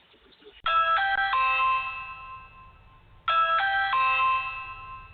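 Video doorbell's electronic chime sounding twice: each time a quick run of three notes, then a held note that slowly fades.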